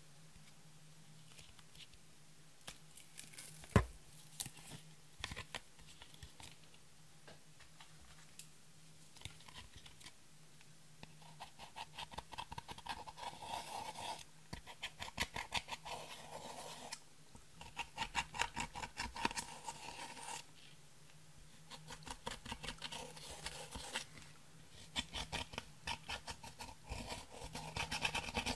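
Dotting tool scraping and crushing pressed eyeshadow out of palette pans in rapid scratchy strokes, coming in several bursts of a few seconds each from about a third of the way in. A single sharp knock about four seconds in.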